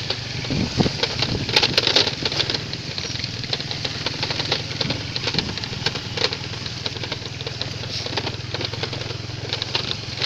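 Motorcycle engine running steadily while riding, with many short clicks and rattles throughout.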